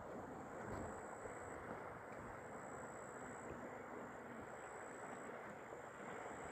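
Faint, steady rush of wind and the fast-flowing Amu Darya river in flood, with a thin, high, steady tone above it that breaks off every second or two.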